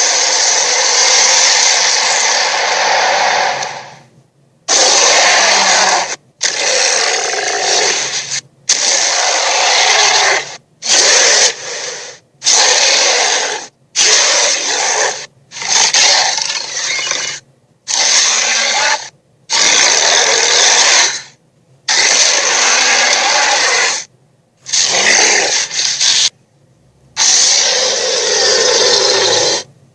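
A string of dinosaur roar sound effects played one after another. There are about a dozen harsh, raspy roars, each lasting one to two seconds, and each cuts off abruptly before a short silence.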